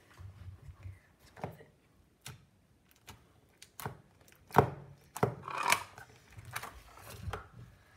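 Crunchy yellow slime pressed and poked by fingers in a plastic tub, giving irregular sharp crunching clicks, about eight or nine of them, the loudest about halfway through.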